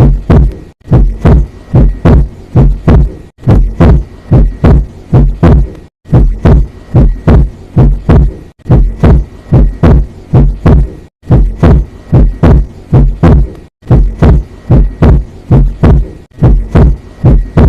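Normal heart sounds heard through a stethoscope: a first heart sound (S1) followed by a second (S2), repeating steadily at 60 beats a minute. This lub-dub pattern is the sign of heart valves working properly.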